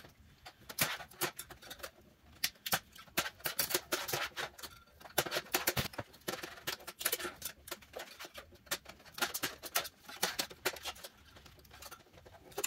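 A metal scraper prying LED backlight strips off a TV's sheet-metal back panel, where double-sided tape holds them: irregular scraping with many sharp clicks and ticks as the strips lift.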